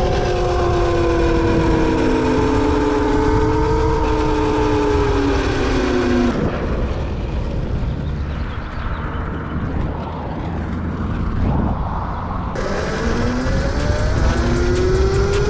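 Electric dirt bike motor whining, its pitch sinking as the bike slows. About six seconds in the whine drops out, leaving rough wind rumble on the microphone. Near the end the whine comes back and climbs as the bike speeds up again.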